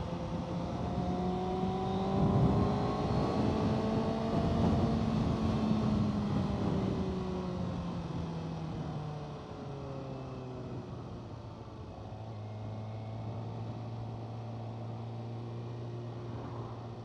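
Kawasaki ZX-6R 636 inline-four engine heard while riding, with wind rush on the microphone. The engine note climbs over the first several seconds, then drops away and steps down twice, settling to a steady lower run for the last few seconds.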